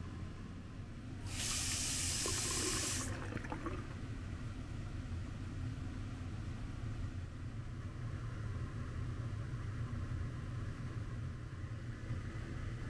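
A washbasin tap runs for about two seconds, water splashing into the sink, then stops. A steady low hum continues underneath.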